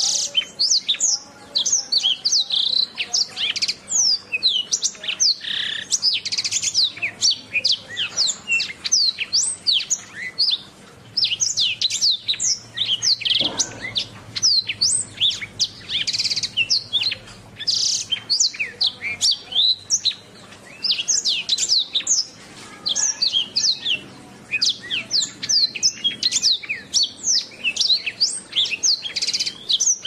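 Domestic canary singing: a continuous song of rapid, high sweeping chirps and trills, broken by a few brief pauses.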